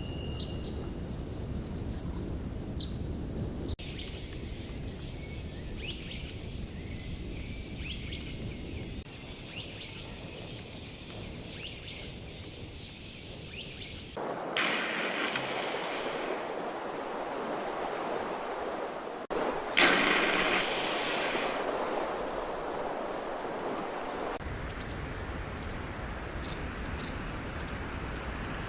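Outdoor natural ambience made of several clips joined with abrupt changes in the steady background noise, with brief bird chirps near the start and a run of sharp, high bird chirps in the last few seconds.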